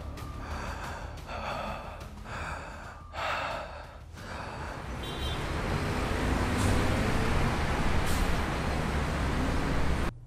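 A man breathing hard, about four ragged gasping breaths in the first four seconds. Then a rushing noise swells steadily and cuts off suddenly near the end.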